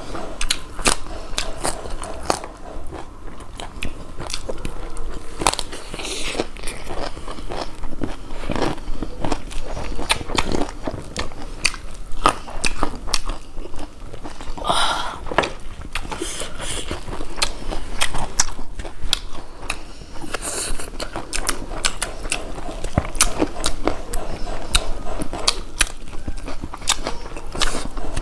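Close-miked eating sounds of two people eating rice and beef curry by hand: chewing, lip smacks and wet mouth clicks throughout. About halfway through, a louder crunchy bite into raw cabbage.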